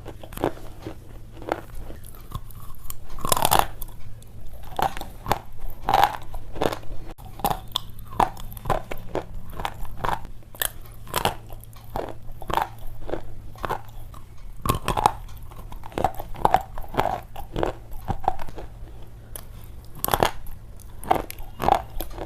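Slate pencil being bitten and chewed close to the microphone: a run of sharp, irregular crunches, a few each second.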